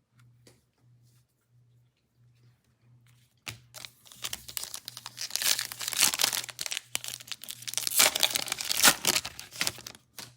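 A Mosaic football card pack's wrapper being torn open and crinkled, starting about three and a half seconds in and running in a dense rustle that peaks twice before stopping near the end.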